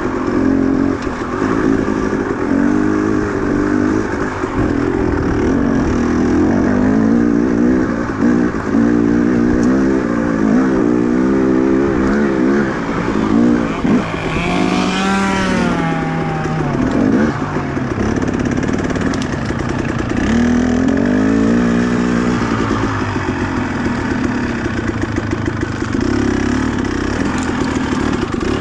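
KTM 300 two-stroke dirt bike engine being ridden on a trail, its pitch rising and falling constantly with the throttle, with one sharp rev and drop about halfway through.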